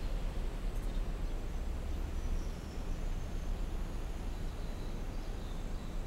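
Steady low rumble of outdoor street ambience at a level crossing, with a car passing over the crossing and a few faint high chirps.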